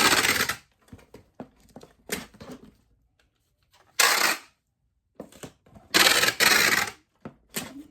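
Packing tape being pulled off a roll to seal a cardboard shipping box: a loud screech at the start, a short one about four seconds in and a longer one about six seconds in, with light rustles and taps between.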